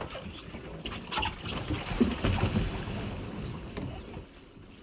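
Water splashing and sloshing around a Wayfarer sailing dinghy's hull as it capsizes and rolls over to lie fully upside down, loudest about two seconds in. Low wind rumble on the microphone.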